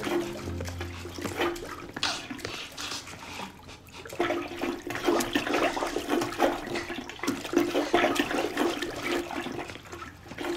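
Water gushing and splashing from a broken tap, coming in uneven surges, with a steady low tone underneath.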